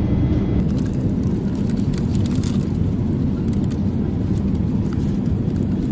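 Steady low rumble of an airliner cabin in flight, with a few brief crinkles of a plastic food cover being handled.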